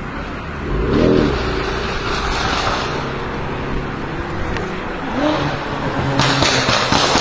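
BMW M5 F10's twin-turbo V8, breathing through catless downpipes, revving: a short rev about a second in, another around five seconds, then a rapid string of exhaust crackles and pops near the end.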